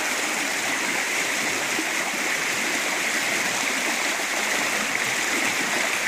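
Creek water rushing steadily over a small ice-jam waterfall about a foot high, where forming ice has squeezed the flow into a narrow open channel.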